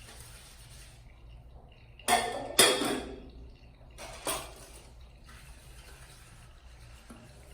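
Hard kitchenware knocking and clattering three times, each strike ringing briefly. The second strike, about half a second after the first, is the loudest.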